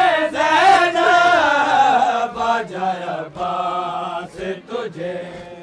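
Men's voices chanting a Shia noha, a Muharram lament, with long held notes. The chanting falls quieter over the last second or so.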